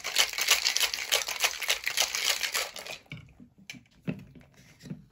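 Ice rattling hard inside a stainless steel cobbler cocktail shaker being shaken, a rapid continuous clatter that stops about three seconds in. It is followed by a few light knocks as the shaker is handled on the counter.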